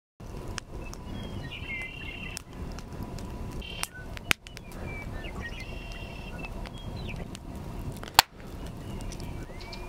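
Outdoor ambience of birds chirping and calling in short, scattered bursts over a steady low background rumble. There is a sharp click about four seconds in and a louder knock about eight seconds in.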